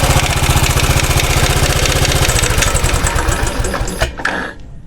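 2013 Royal Enfield Classic 500's single-cylinder engine idling with its steady, rapid beat. It is then switched off: it slows and dies away about four and a half seconds in. The owner is chasing an oscillating rattle in this engine and means to check the tappets and rockers.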